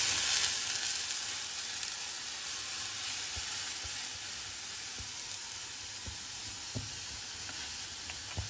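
Cold milk sizzling as it hits a hot kadhai of ghee-roasted gavhale, the sizzle fading over the first couple of seconds to a steady, quieter hiss. A few light knocks of a steel ladle stirring the pan.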